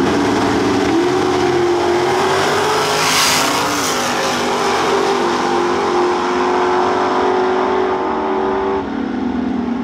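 Two Super Pro drag cars, one of them a first-generation Camaro, launching at full throttle and running hard down the strip. The engine note climbs, dips once about four seconds in as a gear changes, climbs again, and falls away near the end.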